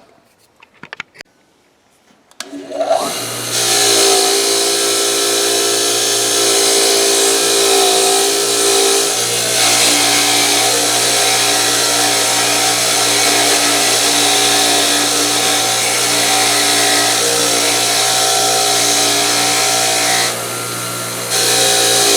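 Bench-mounted wire wheel switched on, its motor spinning up about two and a half seconds in and then running steadily with a hum, while a workpiece is scrubbed against the spinning wire brush to strip rust and gunk. The scrubbing lets up briefly near the end, leaving the motor alone, then resumes.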